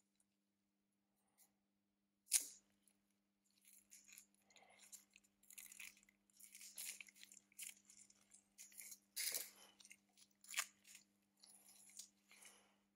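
Small hand tools working on a smartphone during a battery replacement. A sharp click comes about two seconds in, then irregular scraping and rustling with a few sharper taps.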